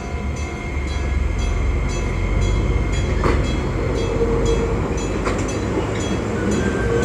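Enoden electric train running, heard from on board: a steady low rumble of wheels on the track with faint steady whining tones, light regular clicks, and two louder clicks about three and five seconds in.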